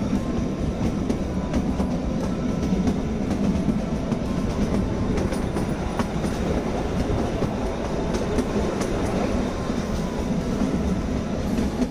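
Kalka–Shimla narrow-gauge train running along the track, heard from an open carriage window: a steady rumble of wheels on rail with faint clicking.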